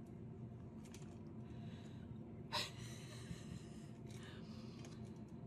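A person's short, sharp breath close by, once about halfway through, over a faint steady low hum.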